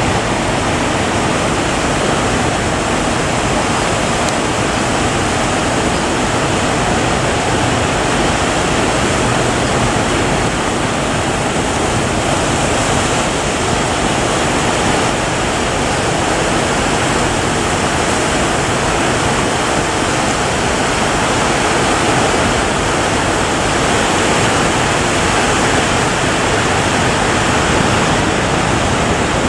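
Heavy surf breaking, a loud steady rush of water with no separate crashes standing out.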